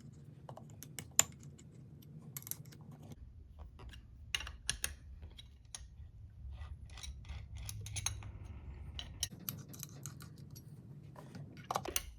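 Scattered light metallic clicks and clinks of a hand tool tightening the screws that hold quick-change master jaws on a steel machine vise, over a low steady hum.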